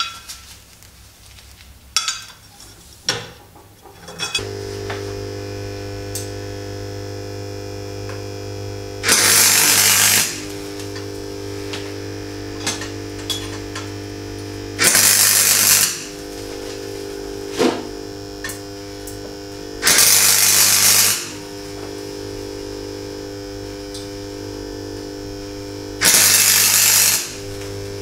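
MIG welder laying four short welds, each a loud crackling burst of about a second, several seconds apart, over a steady electrical hum from the welding machine that starts about four seconds in. A few sharp metal knocks come before the hum.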